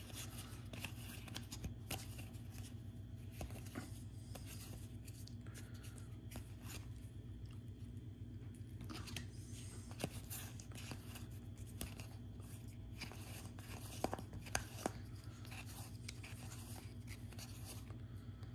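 Baseball cards being handled and flipped through: scattered soft clicks and rustles of card stock, with a few sharper taps about halfway through and again a few seconds later, over a steady low hum.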